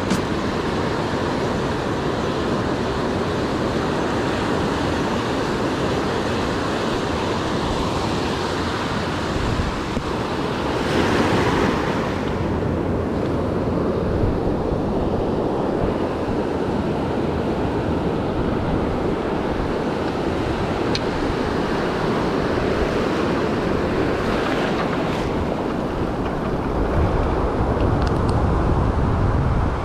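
Ocean surf washing in over a shallow beach, with wind buffeting the microphone; a louder rush of water about eleven seconds in.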